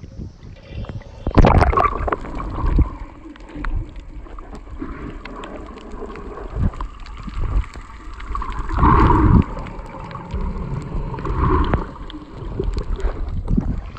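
Muffled gurgling and sloshing of water heard through a phone's microphone as it is held underwater, starting with a loud rush about a second in as it goes under, with louder surges of bubbling near the middle and again near the end.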